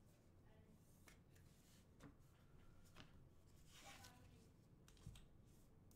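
Near silence with faint rustles and light taps of trading cards being handled and set down on a table, about one a second.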